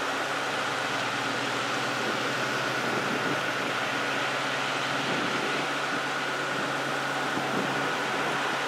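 Steady traffic noise of a line of cars and SUVs driving past in close succession: engines humming and tyres on the road, with a steady high whine running through it.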